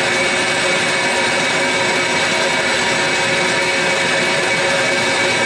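Workshop dust collector and fan running together: a steady rushing noise with several constant tones in it, unchanging throughout.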